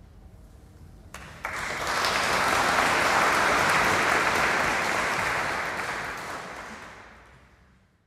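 Audience applauding: the clapping starts about a second in, swells quickly to full strength, then fades away toward the end.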